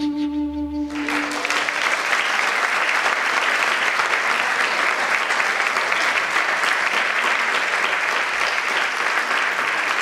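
Audience applauding, a steady clapping that starts about a second in as the last held notes of the recorded song die away.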